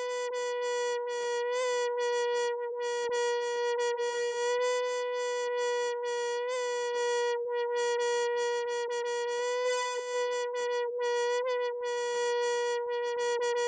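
Mosquito whining in flight: one steady high-pitched buzz with a slight waver in pitch and a flickering edge.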